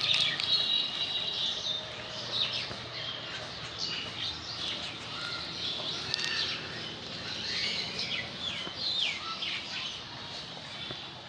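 Birds chirping: many short, high calls and quick pitch sweeps, one after another.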